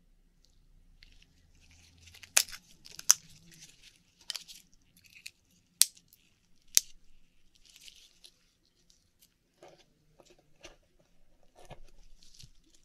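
An Akoya oyster being worked open and picked through for pearls. A tool clicks and cracks sharply against the shell about five times in the first seven seconds, with scraping and rustling in between. Fainter clicks and scraping follow near the end.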